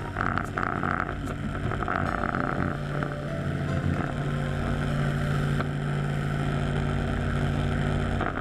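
A motor running steadily with a constant low hum and a hiss that pulses on and off during the first two seconds or so.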